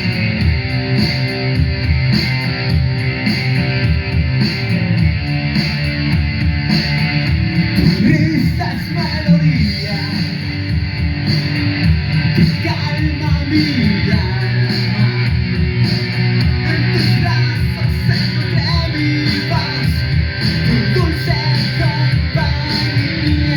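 Rock music with electric guitar and a steady beat, with singing joining about eight seconds in.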